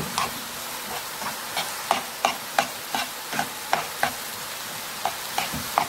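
Diced onions frying in oil in a pan, a steady sizzle, with a wooden spoon stirring and scraping through them about twice a second.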